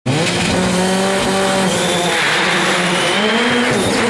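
Rally car engine running hard at high revs, holding a steady note and then shifting up and down in pitch near the end, with a rushing hiss about halfway through.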